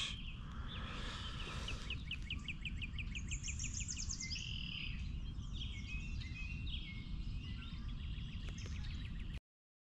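Songbirds singing: a fast run of repeated chirps, then a higher trill and scattered calls, over a low steady rumble. The sound cuts off suddenly near the end.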